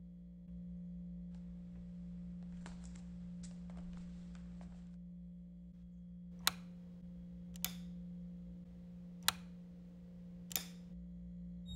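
A faint, steady low hum, with four sharp clicks or knocks spaced one to two seconds apart in the second half, and a faint rustling with light ticks before them.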